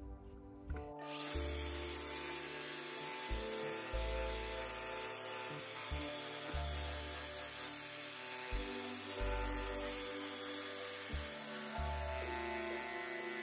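Background music with a steady bass beat starts about a second in. Under it, a Makita variable-speed rotary polisher with a wool buffing pad runs steadily, buffing oxidation off the gelcoat of a jet ski hull.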